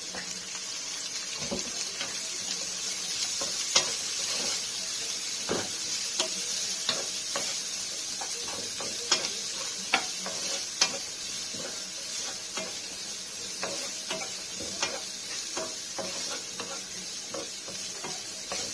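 Sliced onion and chilies sizzling in hot oil in a wok as they are stir-fried with a wooden spatula, which clicks and scrapes against the pan; a few sharper knocks come about 4, 9, 10 and 11 seconds in.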